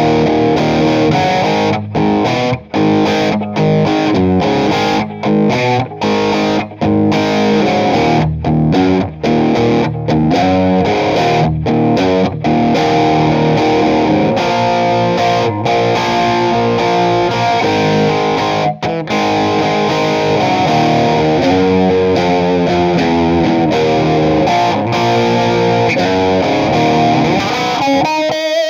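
Distorted electric guitar, a Les Paul-style replica with a Gotoh Tune-o-matic bridge, played loud through a Marshall Silver Jubilee 2525H amp. It plays a rock riff of chords cut off by short stops, then busier runs of single notes in the second half.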